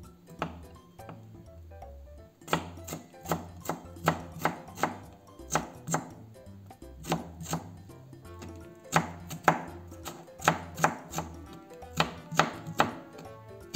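Chef's knife cutting cucumber into thin matchsticks on a plastic cutting board: sharp knocks of the blade striking the board, in uneven runs of several quick cuts with short pauses between.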